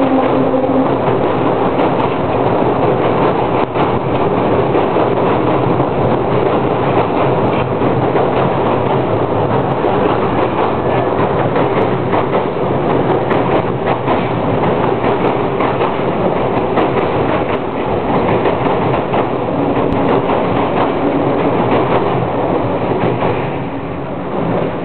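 Freight train wagons rolling across a railway bridge overhead: a continuous loud rumble and rattle with rapid clickety-clack of the wheels, easing off slightly near the end.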